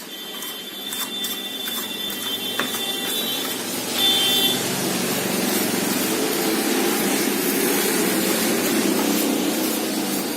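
Dust being cleaned out of an LCD TV's insides: a few light brush strokes and clicks, then a steady rushing, machine-like noise that builds about four seconds in and holds.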